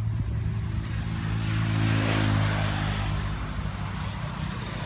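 A motor vehicle passing by: a low engine hum with tyre hiss that swells to its loudest about two seconds in, then fades.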